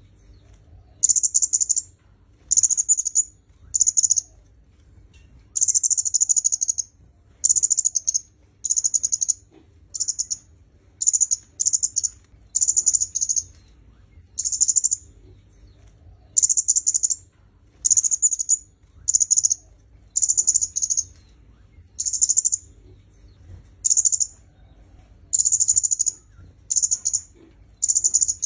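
Kemade kepala merah (red-headed flowerpecker) calling: short, high-pitched bursts of rapid ticking chatter, each under a second, repeated about once a second.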